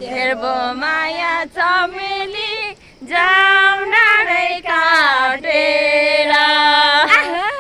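A woman's voice singing a Nepali song solo, with long held notes ornamented with quick turns and wavering pitch, and brief breaths between phrases.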